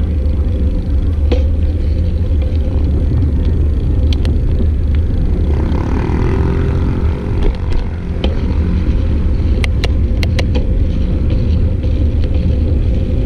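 Steady low rumble of wind and road noise while riding a bicycle, with a few sharp clicks in the second half.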